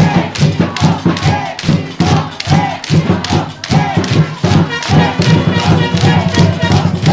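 Music with a steady, regular beat and a sustained bass line.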